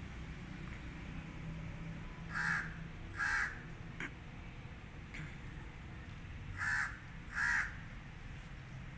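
Crow cawing: four harsh caws in two pairs, the second pair about four seconds after the first.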